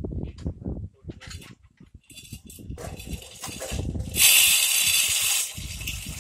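Bore-well riser pipe being hoisted out of the borehole: irregular low knocks and rumble of the pipe and lifting rig. About four seconds in comes a loud rushing hiss lasting about a second.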